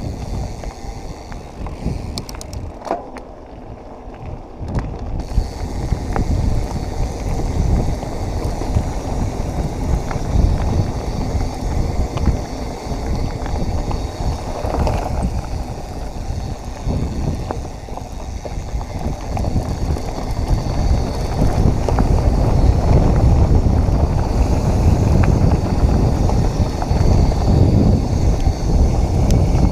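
Mountain bike rolling over a gravelly, rocky dirt trail: tyres crunching and rattling on loose stones, with wind buffeting the action-camera microphone. It grows louder in the last third.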